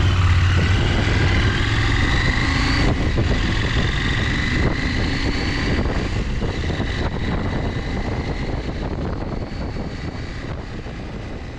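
Motorcycle engine accelerating away from a stop, its pitch rising, with a break for a gear change about three seconds in, then climbing again and settling into a steady cruise with wind rushing over the microphone. The sound fades out gradually near the end.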